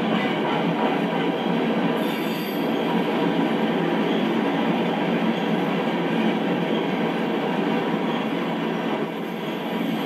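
Freight train tank cars rolling past, their steel wheels making a steady noise on the rails.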